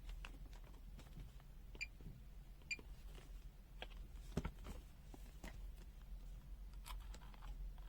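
Faint clicks and taps of a capacitor being hooked up to a FUYI FY129C multimeter's test leads. Two very short high electronic beeps come about a second apart, typical of the meter's buzzer acknowledging a button press.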